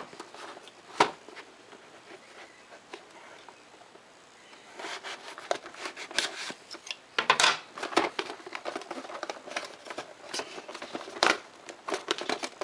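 Scissors slicing through the factory seal sticker on a cardboard CPU box, with crackling and sharp clicks as the box is handled. A single click comes about a second in, then it is mostly quiet until about five seconds in, when the cutting and crackling start and run on in short bursts.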